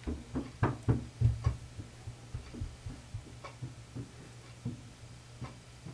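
A run of soft knocks and bumps. Several come close together in the first second and a half, then fainter ones are spread out. A low steady hum runs beneath them.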